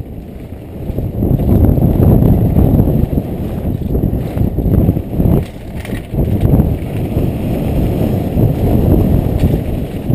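Downhill mountain bike descending a rough trail at speed, heard from a helmet camera: wind buffeting the microphone over the rumble and rattle of the tyres and bike on the dirt, getting louder about a second in.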